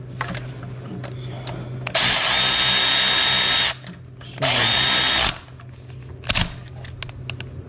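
Cordless ratchet running in two bursts, a long one about two seconds in and a shorter one a second later, each with a steady motor whine, driving a 12 mm alternator mounting bolt down snug.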